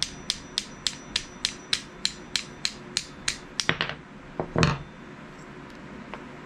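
Small tack hammer tapping steadily, about three strokes a second, on the steel tang of a WWII EGW combat knife to knock loose a handle part that rust is holding on. The tapping breaks into a few quicker knocks and one heavier knock a little past the middle, then stops.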